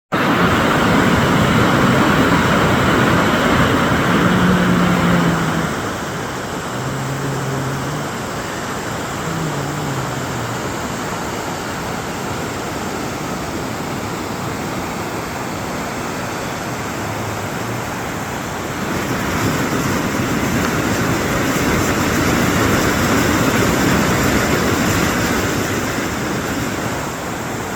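Steady rush of a fast mountain river, louder in the first few seconds and again for several seconds near the end.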